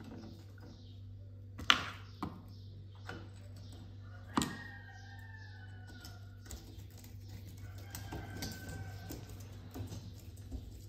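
Scattered light metal clicks and knocks from a screwdriver and steel parts being handled while a screw is driven into a motor mounting bracket on a steel frame. Two knocks stand out, about two seconds in and about four and a half seconds in, and the second one rings briefly.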